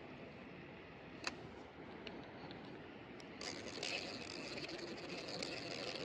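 Tangled fluorocarbon fishing line and reel being handled close to the microphone: a single click about a second in, then rustling and scraping from about halfway through to the end.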